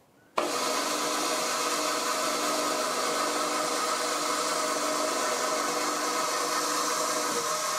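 Milling machine spindle starting up abruptly about half a second in and running steadily in reverse, with a steady hum and several steady tones from the motor and drive, backing a tap out of a freshly tapped blind hole in a steel arbor.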